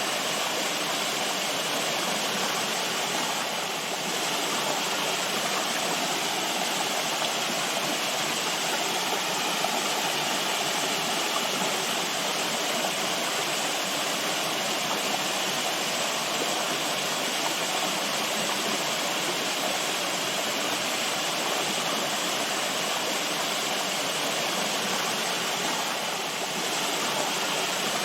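Running water rushing steadily, a stream or small waterfall, with no change in level.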